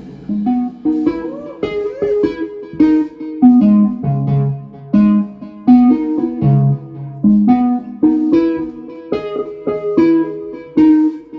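Solo guitar playing a melodic line of separate plucked notes, with a couple of bent notes about one to two seconds in.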